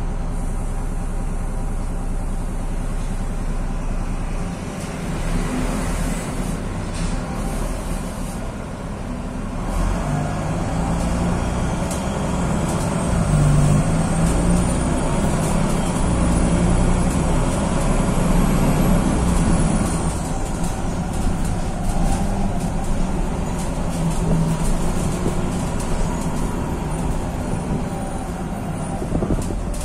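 Volkswagen 26.330 OTA city bus's rear-mounted diesel engine running as the bus drives, heard from inside the cabin. It grows louder about ten seconds in, with a faint high whistle that rises and then falls away.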